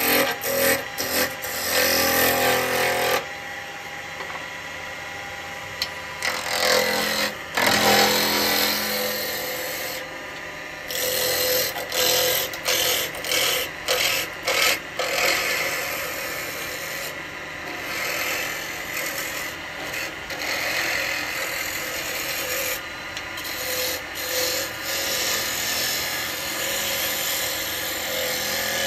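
Wood lathe running while a spindle gouge cuts a small bowl blank, the scraping cut coming and going in short strokes as the tool is pressed in and eased off.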